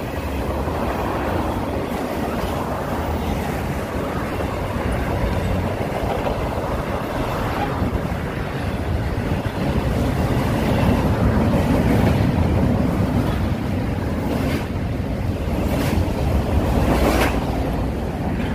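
Intermodal freight train cars rolling past on the track below, a steady noise of wheels on rail, with wind on the microphone. A few sharp clacks near the end.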